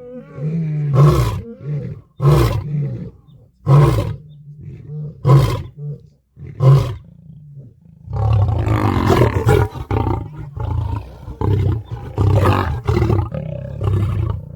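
Lion roaring: short, deep grunting calls about every one and a half seconds, then from about halfway in a longer, denser run of heavy grunts.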